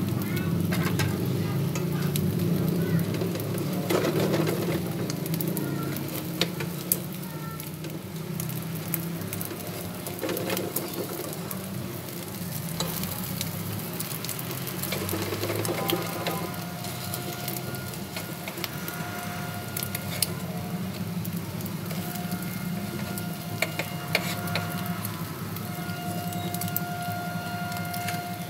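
Egg-dipped bread slices frying in oil in a nonstick pan, sizzling steadily with many small crackles. Now and then a fork and a spatula tap and scrape against the pan as the slices are prodded and lifted.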